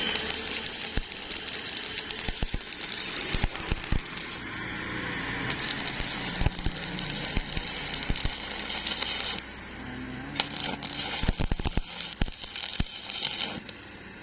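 Irregular metallic clinks and knocks of steel pieces being handled and struck during fabrication, over a noisy hiss.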